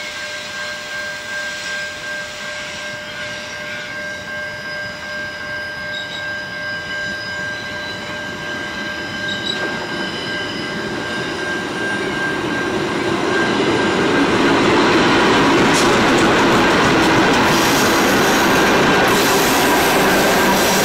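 Pacific National freight train's diesel-electric locomotives approaching and then passing close by. The engine and wheel noise grows steadily louder and reaches full strength about two-thirds of the way through, then holds as the wagons roll by. A steady high tone sounds over the first part.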